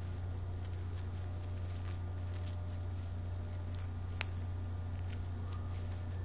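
A steady low hum, with scattered rustling and small creaks of rope being handled and worked at, and one sharp click about four seconds in.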